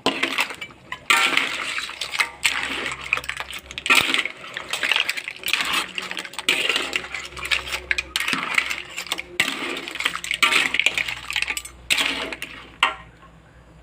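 Clam shells and other seafood clattering and clinking against a pot and utensil as the shellout in its thick sauce is stirred and scooped, a dense run of small clicks and rattles with wet squelching. It stops suddenly near the end.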